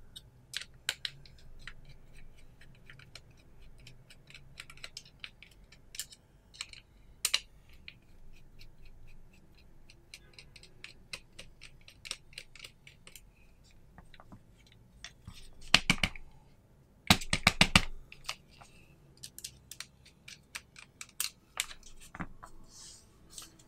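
Small screwdriver and small metal and plastic pistol parts being handled: scattered light clicks and ticks as the two sight screws are worked out of a gas pistol's slide, with two bursts of louder, rapid clicking about two-thirds of the way through.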